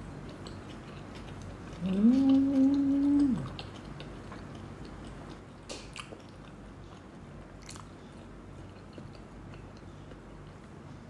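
A woman's closed-mouth "mmm" hum while chewing, rising in pitch, held for about a second and a half, then dropping away, about two seconds in. A few faint chewing clicks follow.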